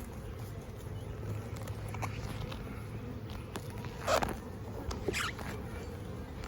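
Honeybees humming low and steady around an open hive, with two short scratchy rasps, the louder one about four seconds in.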